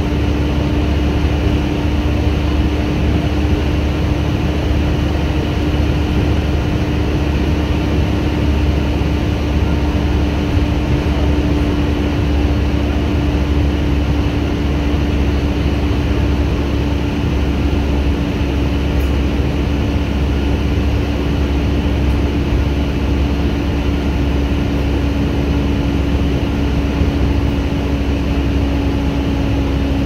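Volvo B7TL double-decker bus driving, heard inside the upper deck: a steady low rumble with a constant whine over it, the vacuum-cleaner-like 'hoover' sound.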